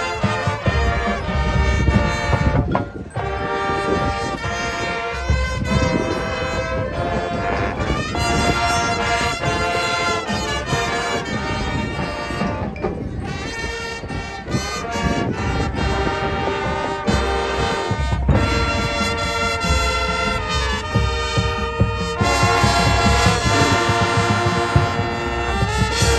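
High school marching band playing a halftime show: brass section (trumpets and trombones) sounding sustained chords over drums, with a brief break about three seconds in.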